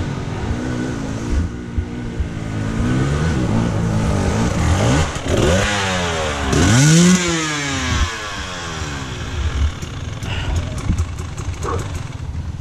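Dirt bike engines running on the trail, with one revved hard about five seconds in, its pitch climbing steeply and then falling away over the next couple of seconds. The engine note settles lower toward the end, with a quick run of light clicks just before the end.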